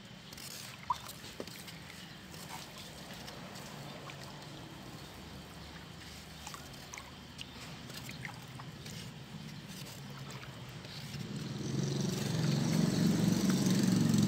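Water sloshing and trickling in a plastic-lined tub as hydroponic nutrient solution is stirred by hand, with small splashes. From about eleven seconds in, a motor vehicle's engine grows louder and keeps running.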